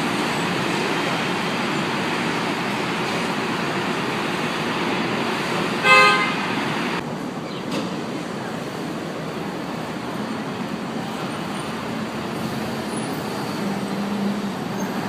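Steady city traffic noise, with a car horn sounding once, briefly, about six seconds in.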